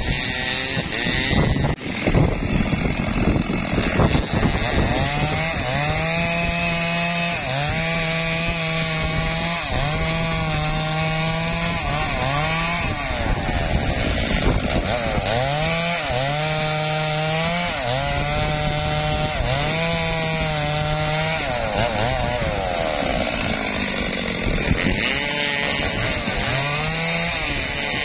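Two-stroke chainsaw cutting logs of a felled teak tree, its engine revving up and easing off again and again, about every two seconds.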